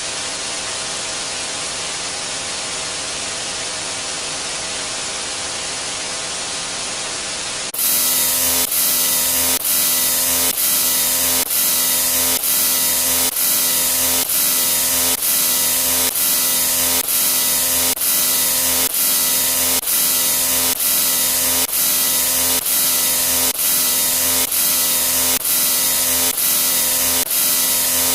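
A steady hissing static-like noise, then about eight seconds in a sudden jump to a louder, harsher noise with a faint hum in it, pulsing in short regular repeats about one and a half times a second.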